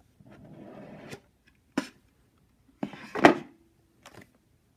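Cardboard clamshell box being slid open by hand: a soft scraping hiss of cardboard sliding on cardboard, a sharp knock, then a louder scrape and rustle about three seconds in, with a few light taps of handling.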